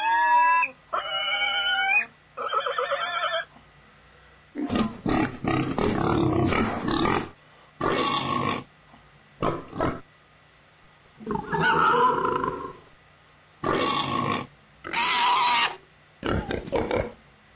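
A man imitating a pig with his voice: a few high, wavering squeals in the first few seconds, then a string of rough grunts, each lasting up to a couple of seconds, with short pauses between them.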